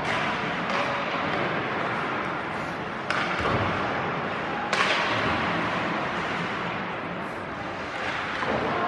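Ice hockey play: steady rink noise with two sharp clacks of stick, puck or boards about a second and a half apart, a little before the middle.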